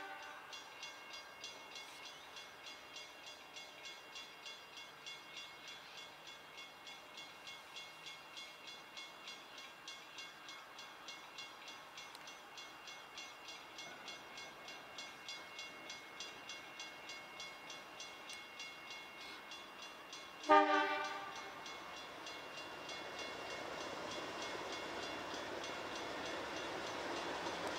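Alco diesel locomotive approaching: faint steady pulsing for most of the time, then one short blast on its horn, sounding several notes together, about three-quarters of the way through. After the blast the locomotive's engine rumble grows steadily louder as it nears.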